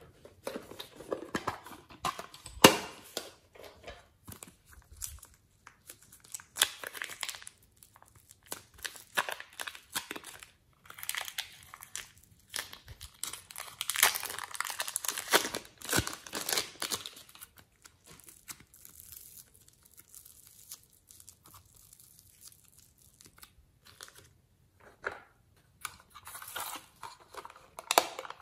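Hands tearing and crumbling soft clay and handling small plastic containers over a tray of slime topped with glitter and sequins: crinkly crackling and tearing with scattered sharp clicks. The crackling is densest in the middle, then quieter for a stretch, and picks up again near the end.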